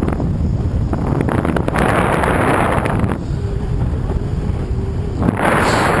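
Strong wind and airflow buffeting the camera microphone of a paraglider in flight: a steady low rumble, with hissing gusts swelling about a second and a half in and again near the end.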